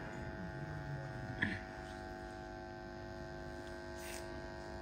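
Steady electrical mains hum, many even tones held throughout with a slight buzz. A low voice murmurs briefly in the first second, and there is a short hiss about four seconds in.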